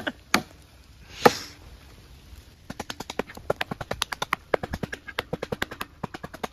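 A single loud knock about a second in, then, from about three seconds in, a fast, even run of sharp knocks, several a second.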